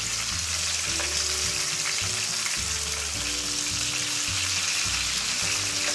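Masala-coated sankara fish frying in hot oil in a shallow pan: a steady sizzle, with a metal spatula stirring and turning the pieces.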